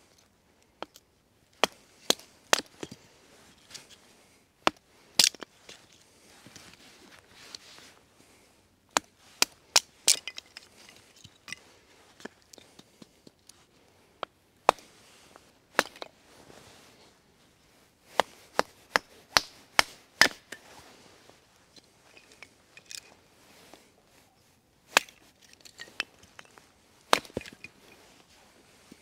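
Kindling being split with a blade on a tree stump: a string of sharp, irregular wooden chops and cracks, several coming in quick pairs.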